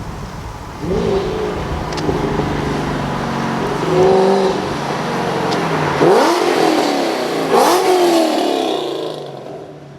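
Ford Mustang V8 accelerating hard under partial throttle, its exhaust pitch rising through the revs and dropping back several times as it shifts up, then fading away near the end.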